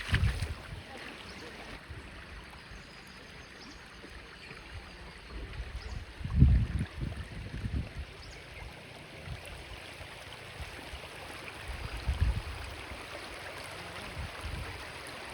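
River water flowing and trickling steadily. Low rumbles hit the microphone about six seconds in and again about twelve seconds in; the first is the loudest thing here.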